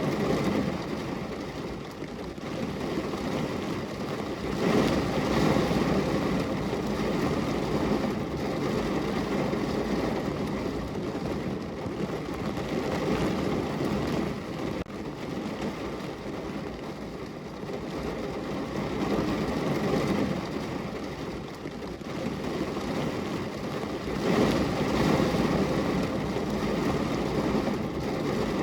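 Heavy rain falling on a car's roof, heard from inside the car as a steady, dense patter. It swells louder about five seconds in and again near the end.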